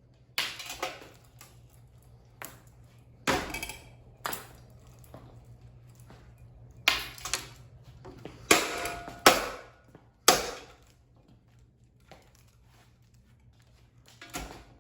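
A Hampton Bay Gazebo ceiling fan being smashed: about a dozen hard, irregular blows with cracking and clattering of its parts, a few of them leaving a brief ring. The blows pause for a few seconds before one more comes near the end.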